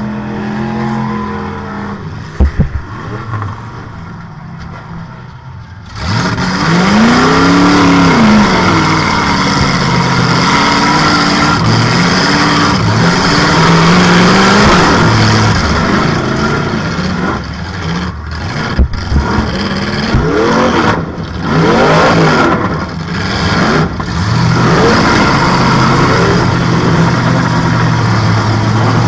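Demolition derby car's swapped-in engine heard from inside the cab: running low and quieter at first, then about six seconds in it revs hard, its pitch rising and falling again and again as the car drives. A few sharp bangs break through, near the start and again about two-thirds of the way in.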